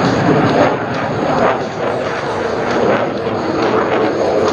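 F-16C fighter's jet engine noise as it flies a demonstration maneuver, a loud, steady roar whose level swells and dips slightly.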